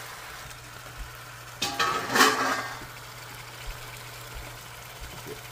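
A metal spoon scraping once against a large aluminium pot of beef and potatoes, about two seconds in, with a brief ringing edge, over a steady low hum.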